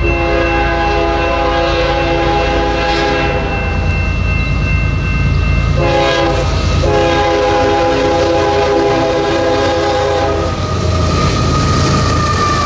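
A Canadian Pacific freight diesel locomotive's air horn sounds a grade-crossing signal: a long blast, a short one, then a final long one, over the rumble of the approaching train. Near the end the lead locomotives pass close by with a heavy diesel rumble.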